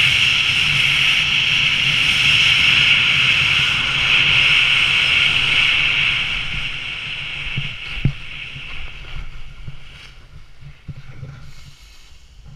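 Loud, steady rush of air over a head-mounted camera's microphone while speed riding on skis under a small wing. It fades away from about six seconds in as the flight slows to the landing. There is a single thump about eight seconds in, then quieter scattered clicks and rustles.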